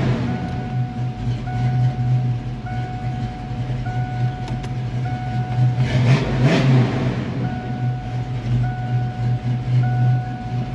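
1987 Ford Mustang's engine idling steadily, heard from inside the cabin, with a dashboard warning tone repeating about once a second.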